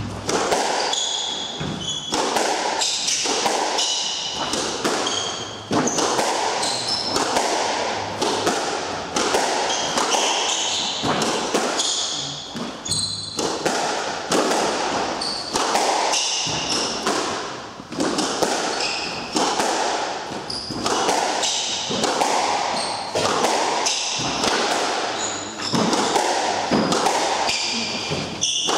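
A squash rally: the ball is struck by rackets and smacks off the court walls in quick succession, echoing around the court, with shoes squeaking briefly on the wooden floor.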